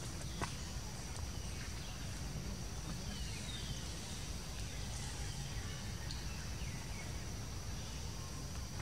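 Forest ambience: a steady high-pitched insect drone over a low rumble, with a few short bird chirps near the middle and a single sharp click shortly after the start.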